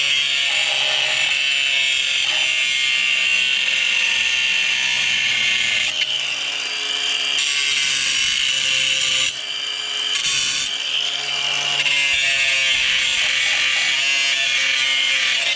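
Angle grinder grinding down rough weld beads on steel post brackets: a steady high-pitched grinding whine that eases off briefly twice before carrying on.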